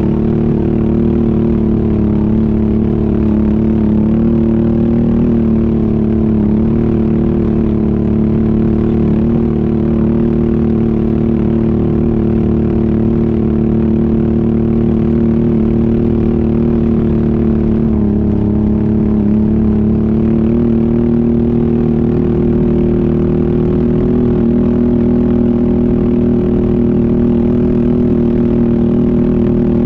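ATV engine running steadily while riding. Its pitch dips briefly about two-thirds of the way through, then settles slightly higher.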